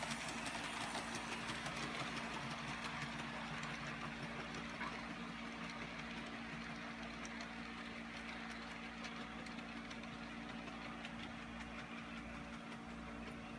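HO-scale model train running on its track: the small brass 0-4-0 locomotive's electric motor humming steadily while the wheels rattle with light clicks, slowly fading as the train moves away.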